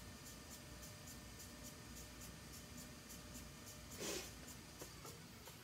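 Electric pottery wheel turning a wet clay mug under nitrile-gloved hands, faint, with a light regular ticking about five times a second. A brief louder rush of noise comes about four seconds in.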